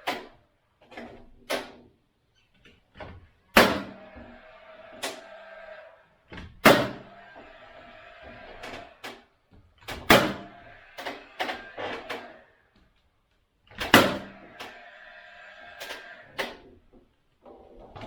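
Sharp knocks and taps as PVC soffit boards are fitted into place overhead: five loud hits a few seconds apart with lighter knocks between, over a steady hum.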